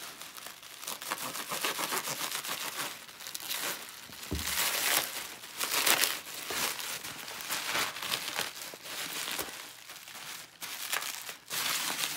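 Bubble wrap and packing tape crinkling and tearing as they are pulled off a guitar neck by hand, in irregular surges, with a dull thump about four seconds in.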